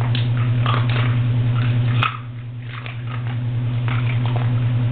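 Crunching and clicking of dog treats in a trick-training session, over a steady low hum. About two seconds in there is a sharp click and the hum dips for a moment.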